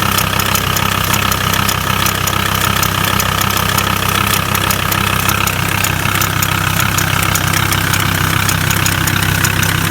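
Volkswagen T4's 2.5 five-cylinder AXL diesel idling steadily with a regular light clicking over the engine note. It is an extraneous knock from somewhere on top of the engine that the owner cannot place, suspecting the camshaft or the injection pump.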